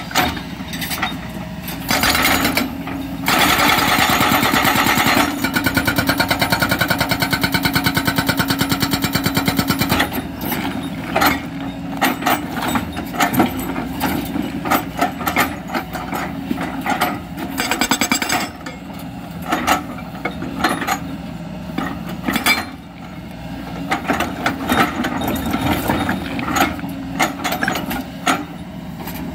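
SHS S50 hydraulic rock breaker mounted on a Kobelco excavator, hammering its chisel into hard stone in a rapid stream of blows. The hammering runs continuously for the first third, then comes in shorter bursts with brief pauses. The excavator's engine runs steadily underneath.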